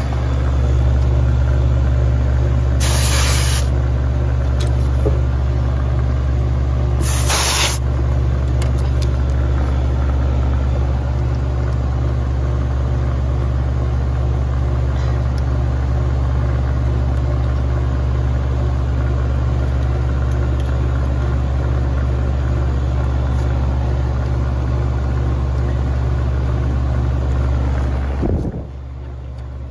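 Old R-22 air-conditioning condenser running: a steady low hum from the compressor and fan, working normally with its refrigerant pressures where they should be. Two short hisses break in about 3 and 7 seconds in, and the hum drops in level near the end.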